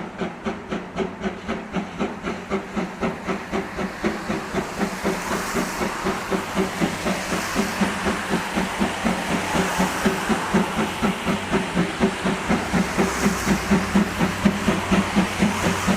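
Tobu Railway's C11 steam tank locomotive working a train, its exhaust beating in a steady rhythm of about two or three chuffs a second, with a hiss of steam. The beats grow gradually louder as the locomotive draws nearer.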